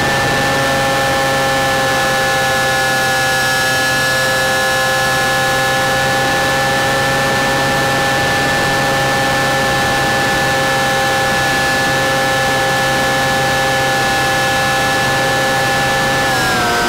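Model airplane's motor and propeller whining at a steady high pitch in flight, with wind rushing over the onboard camera. The pitch drops near the end as the throttle is eased back.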